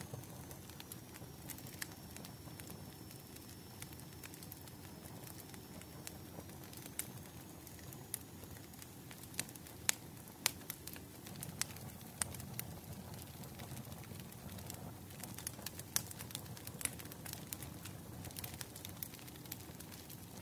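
Bonfire crackling: scattered sharp pops and snaps of burning wood over a low, steady rumble of flames.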